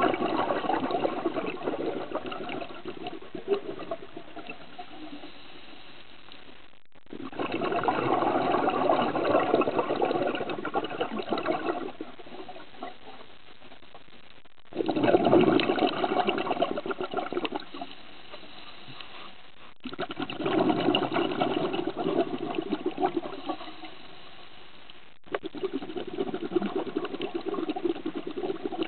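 Scuba diver breathing through a regulator: a rush of exhaled bubbles that swells and dies away every five to seven seconds, five times, with quieter stretches between breaths.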